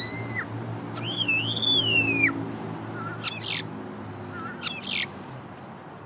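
European starling whistling: two long whistles that slide up and down in pitch, then two short, sharp notes, each ending in a brief high whistle. A low, steady hum runs underneath.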